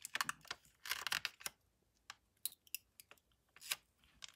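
Irregular clicks, taps and crackles of stiff plastic as the cells of a replacement MacBook Pro battery pack are gripped and flexed by hand. The clicks are densest in the first second and a half, then come singly.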